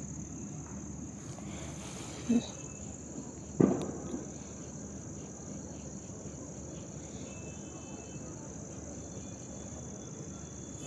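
Crickets chirring steadily in the background. A short low blip comes about two seconds in, and a louder knock about a second and a half later.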